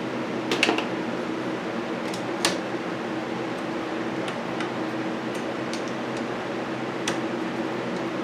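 A few scattered light metal clicks and clinks as the cutting tool and its shims are handled in the lathe's tool post, over a steady background hum.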